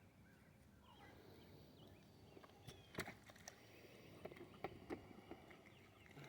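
Near silence, with a few faint chirps and, in the second half, several light clicks and taps.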